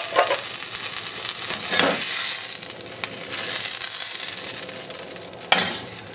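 Butter sizzling and foaming in a hot stainless steel frying pan, a steady crackling hiss that eases off a little toward the end. Two brief louder swells come about two seconds in and near the end.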